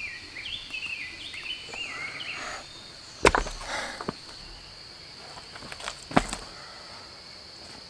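Two sharp wooden knocks about three seconds apart as cut log rounds are dropped onto the stony ground. A bird sings for the first couple of seconds, over a steady high hum.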